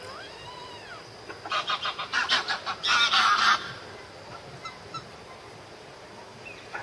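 Sleeping Malayan tapir snoring: a rapid run of stuttering pulses, about seven a second, builds into a louder unbroken noisy snore before stopping after about two seconds.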